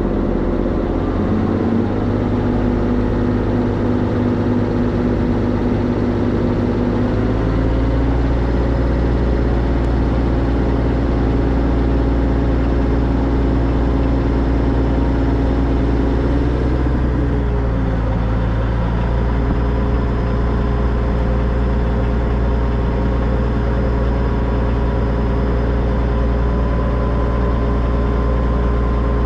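Narrow-gauge steam train running steadily along the line, heard from the locomotive: a continuous rumble with steady tones that shift in pitch twice as the speed changes.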